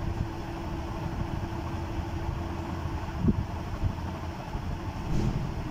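Steady low background rumble, like a running motor, with no clear events in it.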